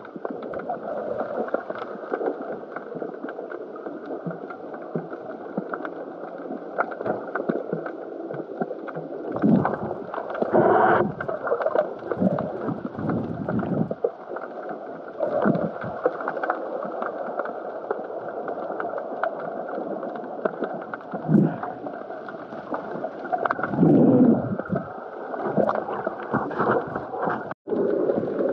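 Muffled underwater water noise heard through a camera's waterproof housing: a continuous dull rush with louder swirling surges about ten seconds in and again near twenty-four seconds. The sound drops out for an instant near the end.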